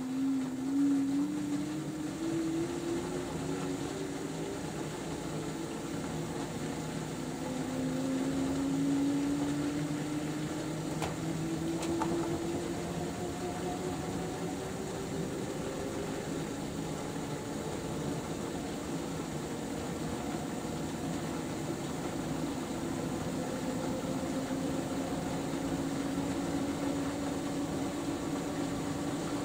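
LG AiDD Steam F4V910BTSE direct-drive washing machine spinning, its motor whine rising slowly in pitch as the drum speeds up during the final spin.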